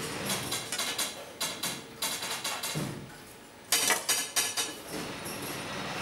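Light metallic clicking and clatter in a brush workshop, many quick clicks at first, then from a little past halfway a regular run of louder taps, about three a second.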